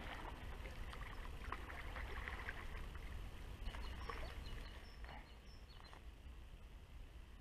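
Wind rumbling on the microphone, with rustling and light clicks through the first few seconds and a few short, high bird chirps about four to six seconds in.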